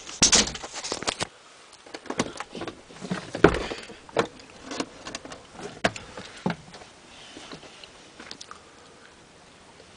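Irregular knocks, clicks and rustles of someone moving about inside a bus with the camera in hand, dying away after about seven seconds.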